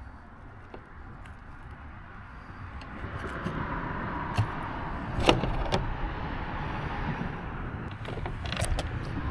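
Fishing reel being cranked to bring in a small smallmouth bass, a steady whir growing louder, with a few sharp clicks.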